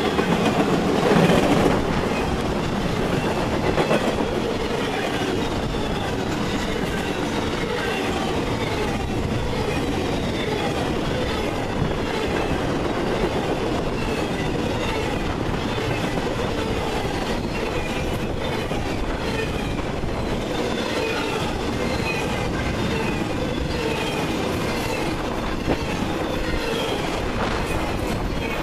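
Norfolk Southern freight cars rolling past, with wheels clicking steadily over rail joints and occasional high squeal from the wheels. It is loudest in the first few seconds, then steady.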